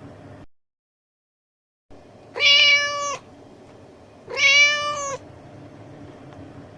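Domestic cat meowing twice, about two seconds apart: two drawn-out meows of steady pitch, each just under a second long, falling off at the end. Faint background hiss lies between them.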